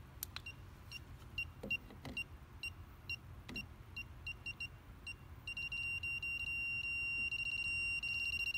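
Southwire 41210S circuit breaker finder receiver beeping as it is passed over the breakers. It gives short, widely spaced high beeps at first, then about five and a half seconds in switches to a much louder rapid, almost continuous beeping. The fast tone means the receiver is on the breaker that carries the transmitter's signal.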